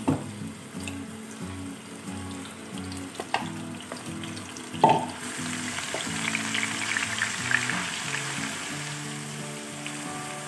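Onion paste frying in hot olive oil with cumin seeds, sizzling as it is stirred and spread with a wooden spoon. There are a few sharp knocks in the first half, and the sizzle grows louder from about halfway.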